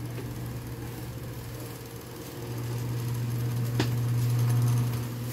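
Steady low hum of a small electric motor, growing louder about halfway through, with a single sharp click near the end.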